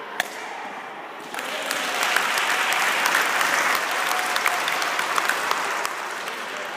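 A crowd applauding: a single sharp knock just after the start, then clapping that swells about a second and a half in and eases off near the end.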